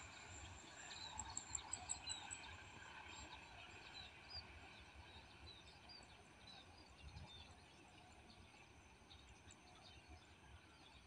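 Faint birds chirping, with a quick run of chirps about a second in, over a low outdoor hum that slowly fades as a train recedes into the distance.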